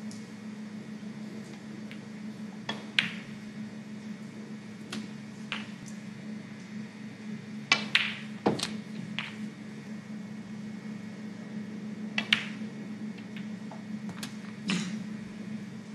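Snooker balls clicking on the table: the cue striking the cue ball and balls knocking together, several sharp clicks a few seconds apart over a low steady hum.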